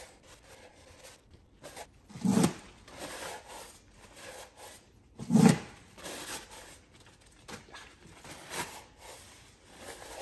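Paper towel rubbing and wiping inside a throttle body's intake tube, a soft scrubbing rustle from the part being turned in the hands. Two louder thumps come about two and five seconds in.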